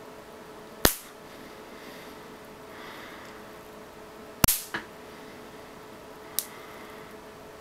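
Rubber band flicked against the sole of a bare foot, snapping sharply: once about a second in, again at four and a half seconds followed at once by a lighter snap, and a fainter snap near the end.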